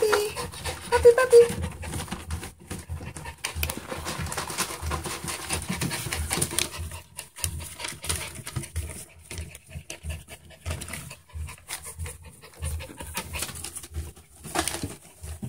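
Schipperke puppies panting and snuffling close to the microphone, with newspaper underfoot rustling and crackling as they move.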